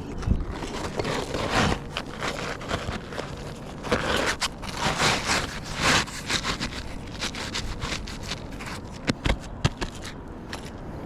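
Rough scraping and crackling on asphalt roof shingles, coming and going irregularly, with a few sharp knocks about nine seconds in.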